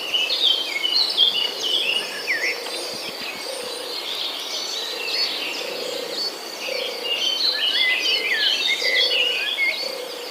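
Many small birds chirping and chattering at once in a dense, overlapping chorus of short quick calls, with a faint low pulse repeating about once a second underneath.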